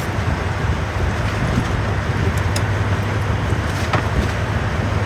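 Outrigger dive boat's engine running steadily with a low drone, and a few faint clicks of dive gear.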